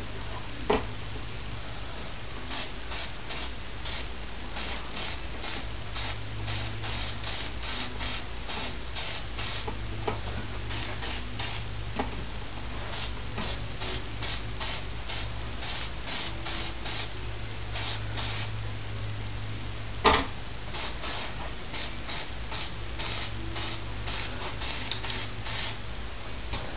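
Aerosol spray paint can sprayed in many short hissing bursts, about two or three a second, with brief pauses between runs, over a steady low hum. A sharp knock about two-thirds of the way through is the loudest sound.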